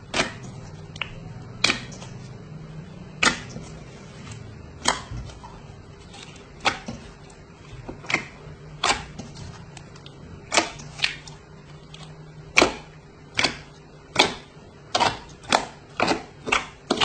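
Clear slime being poked and squeezed, giving sharp clicks and pops of trapped air about once a second, coming quicker near the end.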